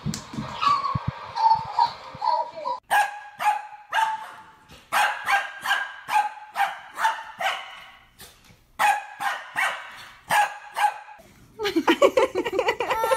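A small dog barking over and over in short, high-pitched barks, about two a second. Near the end a baby starts to cry, its voice rising in pitch.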